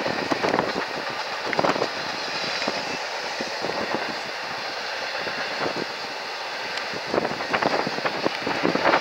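Double-stack container freight cars rolling past: a steady rolling noise broken by irregular clicks and clanks, which come thicker near the end.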